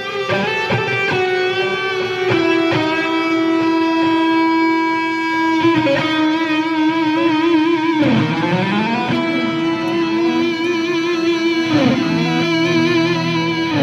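Electric guitar playing sustained notes over a held lower tone. About halfway through the notes waver in pitch, and twice the pitch drops sharply.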